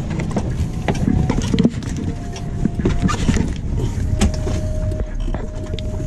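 Wind rumbling on the microphone outdoors in snow, with scattered knocks and scuffs of the phone being handled and footsteps on a slushy driveway. A faint steady whine joins about four seconds in.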